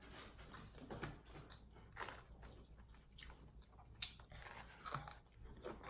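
Close-miked chewing of crunchy fried food: quiet crunches and mouth clicks at irregular intervals, with one sharper click about four seconds in.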